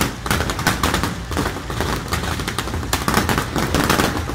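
Daytime fireworks and firecrackers going off from ground racks: a dense, unbroken barrage of sharp cracks and bangs, many reports a second, like rapid gunfire.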